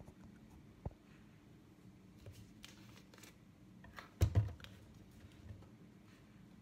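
Small handling noises from a plastic bottle of liquid tube-feeding formula being picked up and gripped at the cap before pouring: a light click about a second in, then two dull knocks a little past the middle, the loudest sounds here.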